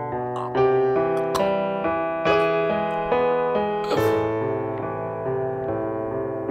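Background music: a slow piano score, with notes and chords struck about once a second and left to ring.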